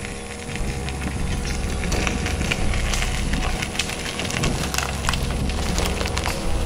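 Compact SUV's tyres crunching and crackling over gravel and a steel bridge deck as it drives across, over a steady low rumble of the vehicle running. The crackle thickens about two seconds in.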